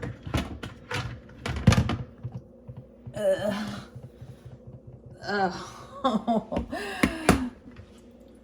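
Dishwasher parts being pulled out, with several sharp plastic and metal knocks and clicks in the first two seconds. Later come a few short wordless voice sounds.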